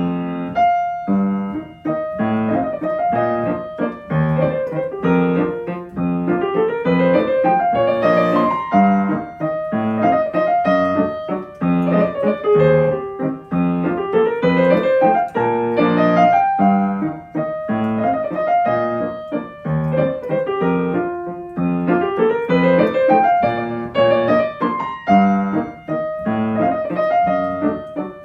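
Solo piano playing a waltz, with steady bass-and-chord accompaniment and a melody that climbs in a short run about every eight seconds.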